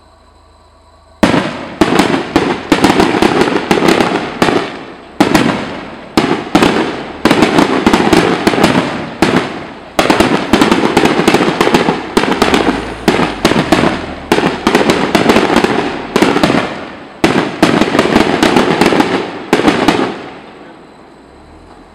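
Aerial firework shells bursting in a rapid, loud barrage: bangs and crackling come many to the second, starting suddenly about a second in and dying away shortly before the end.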